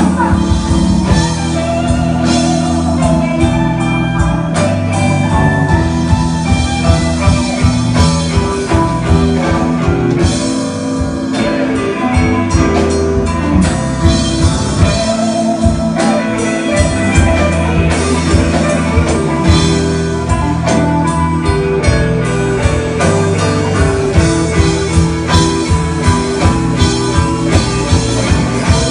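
Live blues-rock band playing an instrumental passage without vocals: an electric guitar lead with bent, wavering notes over bass, a drum kit keeping a steady beat, and keyboards.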